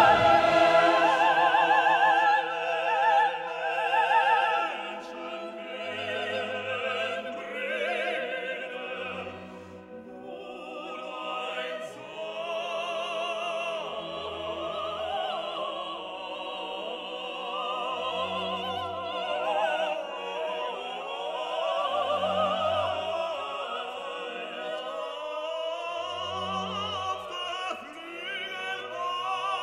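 Classical music: an operatic singing voice with vibrato over an orchestra, louder for the first few seconds and then softer.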